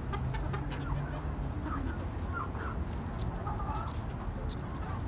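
Hens clucking as they feed: a scatter of short, soft calls, one after another.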